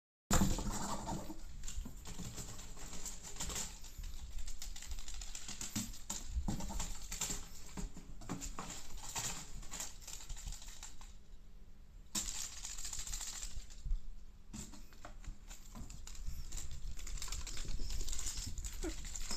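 Crinkly stick teaser toy rustling and crackling in irregular bursts as a kitten bats at it, with scratching and light knocks on an empty cardboard box.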